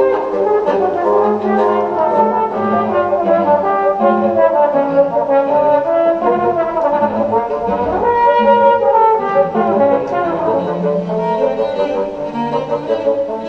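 Live chamber ensemble music with a trombone prominent over short, repeated low notes in the bass.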